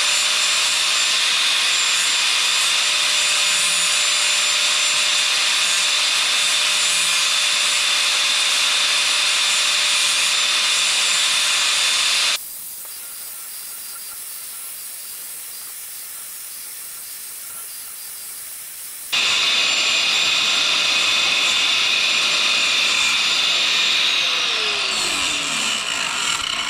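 Electric cut-off wheel grinding through a motorcycle's steel drive chain: a steady high whine with harsh cutting noise. About halfway through it drops sharply quieter for several seconds, then returns. Near the end the motor spins down in falling pitch.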